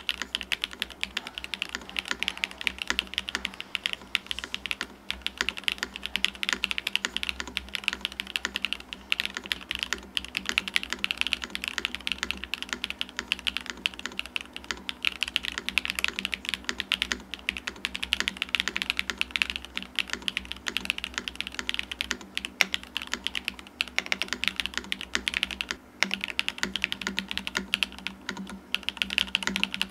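Continuous fast typing on a TKD Cycle 8 tenkeyless mechanical keyboard fitted with ClickClack Ripple switches, a dense run of key clacks with a brief pause a few seconds before the end.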